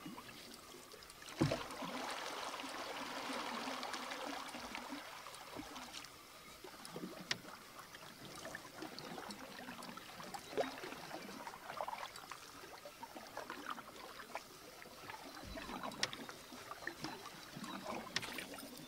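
Wooden canoe paddle strokes in calm lake water: the blade dipping and pulling with a splashy swirl, then water dripping and trickling off it. A short knock about a second and a half in.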